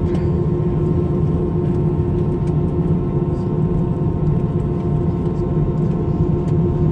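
Cabin noise inside an Airbus A321 rolling on the ground after landing: a steady low rumble with a constant hum from the engines and airframe.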